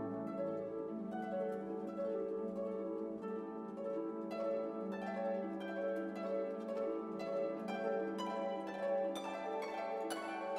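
Background music: plucked harp notes over sustained orchestral chords.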